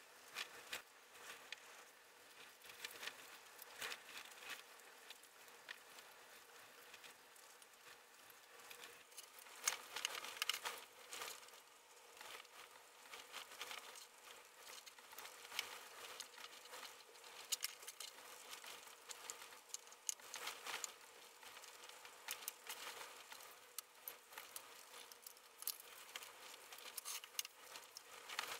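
Faint, scattered clicks and light clinks of machined steel plates and small fixings being handled and fitted together on a workbench, with a few louder clusters about a third and two thirds of the way through.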